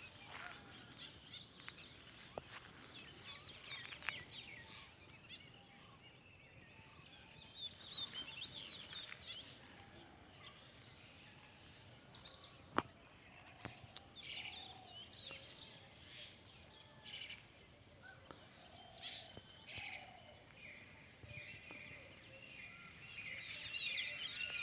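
Small birds chirping with short, quick calls, over a steady high-pitched insect trill of evenly repeating pulses. A single sharp click sounds about halfway through.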